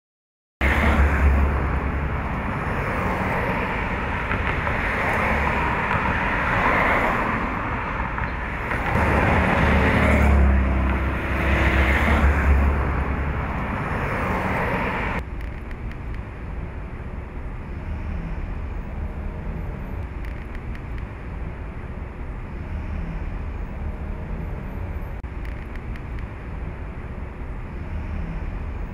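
City road traffic: a steady noise of cars, buses and motorcycles with a low rumble that swells a few times. At about fifteen seconds it cuts to a quieter, steady outdoor hum.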